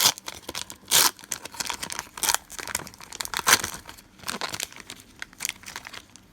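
Foil wrapper of a Pokémon booster pack being torn open and crinkled by hand, a series of irregular crackling rips, loudest near the start, about a second in and midway.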